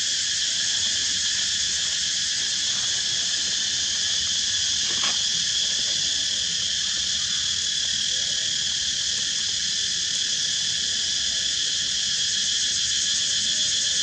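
Steady, unbroken insect chorus, a dense high-pitched chirring in several layered pitches, with one faint click about five seconds in.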